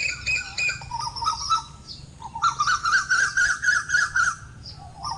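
Birds calling: rapid series of short chirping notes, in two bursts, the louder one in the middle.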